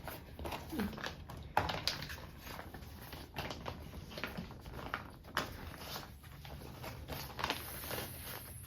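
Scattered soft clicks and rustles of objects being handled, with the clearest knocks about a second and a half in and again past the middle.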